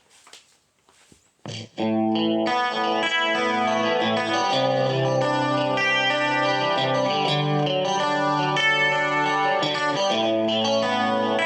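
1985 Matsumoku-built Westone Spectrum GT electric guitar played clean through a vintage Roland instrument cable. A few faint clicks come first, then a short strum about a second and a half in, then steady playing of sustained ringing chords and notes.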